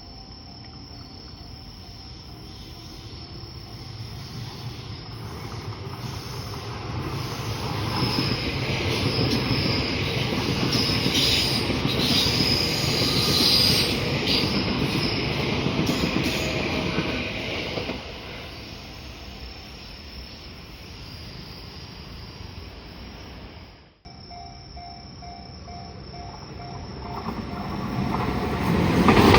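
Electric train passing over a level crossing: the rumble of wheels on the rails builds over several seconds, stays loud for about ten seconds, then falls away. Later, after a sudden break, the crossing's warning bell rings and another train comes up loudly near the end.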